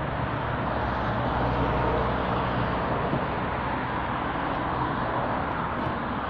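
A steady low mechanical hum and rumble with an even hiss over it, without distinct knocks.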